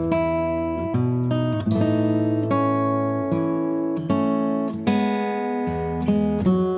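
Background music: an acoustic guitar strumming chords, a new chord about every second, each ringing on and fading.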